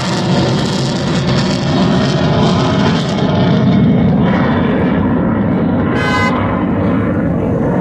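The twin F119 jet engines of a USAF F-22 Raptor running loud at high power during a pass: a dense, crackling jet noise that grows duller over the last few seconds as the aircraft draws away.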